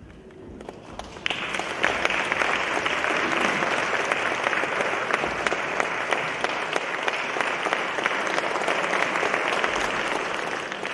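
Audience applause, dense steady clapping that starts about a second in and dies away near the end, welcoming the soloist onto the stage.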